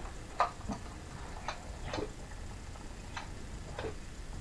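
Scattered light clicks and knocks, about six spread irregularly with the sharpest about half a second in, from hands working on a Stihl 026 chainsaw whose engine is not running.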